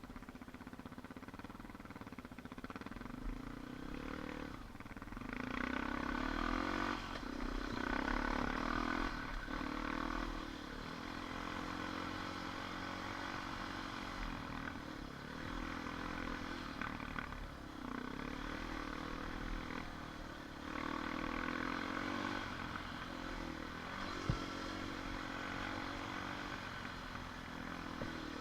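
ATV engine running under way, its pitch climbing and dropping again and again as the throttle opens and eases off. One sharp knock about three quarters of the way through.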